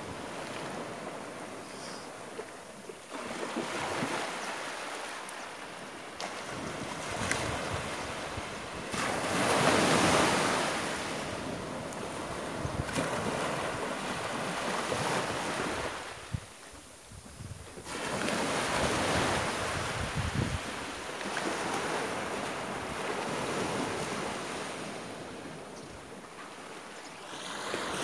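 Small sea waves breaking and washing up a sandy beach. The surf rises and falls in slow surges, loudest about ten seconds in.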